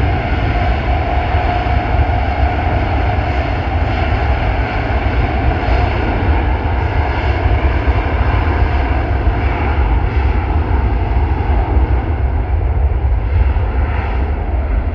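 Jet airliner's engines as the plane passes: a steady heavy rumble with a whining tone that drifts slightly lower and fades about halfway through.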